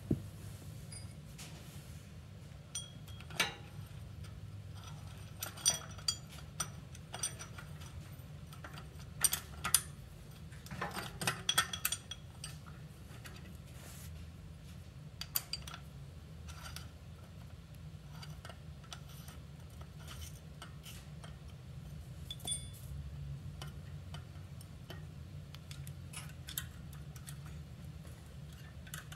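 Small metal parts clinking and tapping as the sprocket's bolts and nuts are handled and fitted at the bicycle's rear hub. The clinks come in scattered little clusters, busiest in the first half, over a steady low hum.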